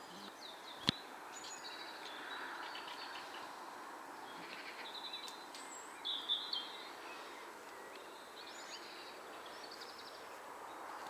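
Birds chirping and calling in short phrases over a steady hiss of background noise, the loudest calls about six seconds in. A single sharp click sounds about a second in.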